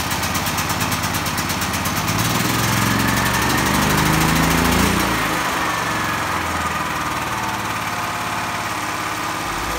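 DeWalt portable generator's engine running just after a cold start on choke, on its first run after a valve replacement. Its speed wavers from about two to five seconds in, then settles to a steady run.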